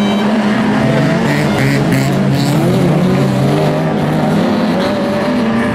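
Several dirt-track race cars' engines running hard together, their overlapping notes rising and falling as they accelerate and lift off through a bend.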